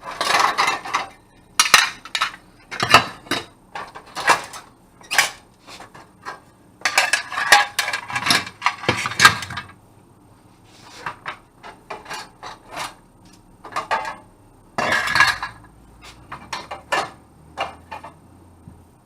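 Irregular metal clattering and clanking of an electric range's plug-in burner coil elements and other stove-top metal parts being pulled out, handled and set down, with many separate knocks.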